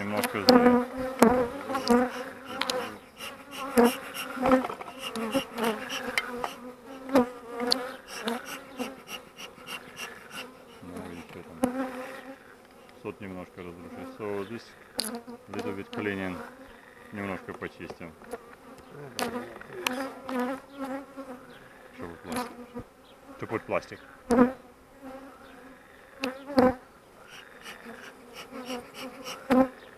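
Honey bees buzzing around an open hive, single bees flying close past the microphone with a hum that swells and bends in pitch as they pass. Scrapes and clicks of a hive tool on the wooden frames come now and then.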